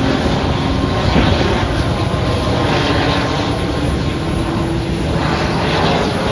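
Airliner engines running: a loud, steady rushing noise with a few faint steady tones under it.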